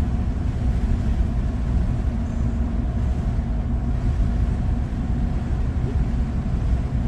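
Steady low rumble of a car's road and engine noise, heard from inside the cabin of a moving car.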